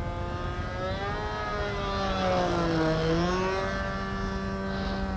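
The engine of a Phoenix Edge 540 RC aerobatic plane, fitted with a can muffler, running in flight overhead. It gets louder toward the middle, and its pitch dips briefly about three seconds in and comes back up.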